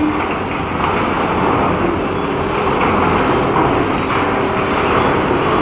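Demolition excavators tearing down a mall's escalators: steady heavy-machinery noise with continuous crunching and rattling of breaking concrete and metal debris.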